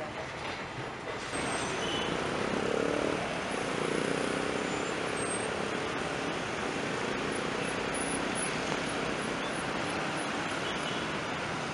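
Steady road-traffic noise, an even rushing hum that gets louder about a second in.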